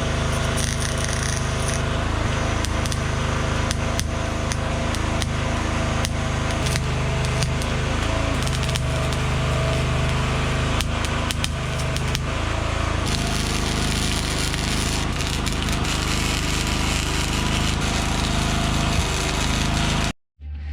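Electric arc welder running, a steady crackle with many sharp pops, welding thick galvanized steel pipe onto thin, old, rusty car body metal that keeps blowing through. It cuts off suddenly near the end.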